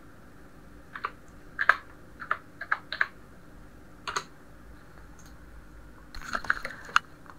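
Keystrokes on a computer keyboard typing a short word: about six separate key presses between one and three seconds in, another press about four seconds in, then a quicker run of clicks near the end.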